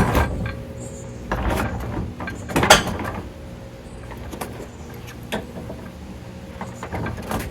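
Metal clunks and scraping from heavy equipment being shifted on jacks and a rolling cart, with a few sharp knocks, the loudest a little under three seconds in, over a steady low hum.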